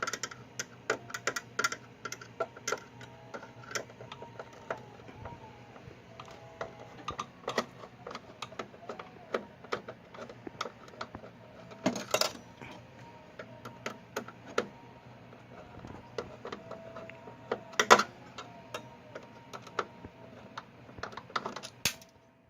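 Rapid, irregular clicking and knocking of plastic and metal parts as a PowerMac G4 power supply is pushed and worked loose inside the computer case, with two louder knocks about midway and near the end.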